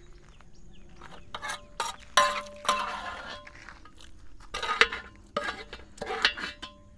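Steel ladle knocking and scraping against a large steel cooking pot while thick chicken curry is scooped into small clay pots: a run of clinks, some leaving a short metallic ring.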